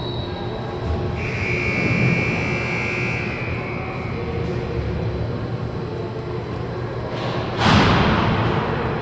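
A referee's whistle blown once, a single steady tone held for about two seconds, over a constant low arena rumble. About seven and a half seconds in comes a loud bang that dies away over about a second.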